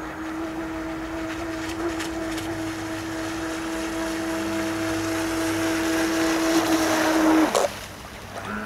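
Radio-controlled bait boat's electric motors running at speed with a steady whine, growing louder as the boat approaches. The whine cuts off abruptly near the end.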